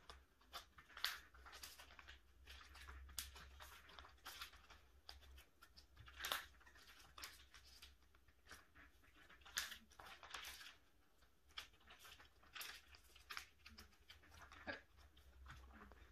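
Faint rustling and crinkling of clear plastic binder sleeves as photocards are slid into their pockets, with a handful of sharper crackles and a page of sleeves being lifted near the end.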